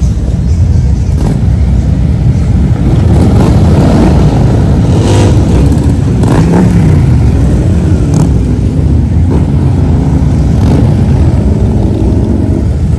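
Motorcycle engines running loud as bikes pass, the engine pitch rising and falling with the throttle.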